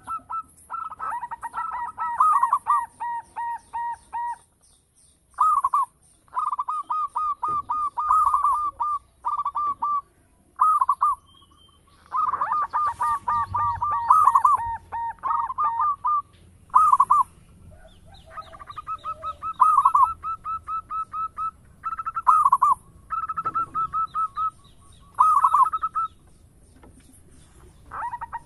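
Local zebra dove (perkutut) cooing: phrases of rapid, rolling coos a second to a few seconds long, repeated again and again with short pauses between them.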